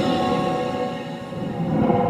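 Dolby theatre surround demo sound played loud through the small built-in speaker of a 勳風 F8 Bluetooth karaoke microphone. It is a dense, music-like swell of held tones over a low rumble that builds again near the end.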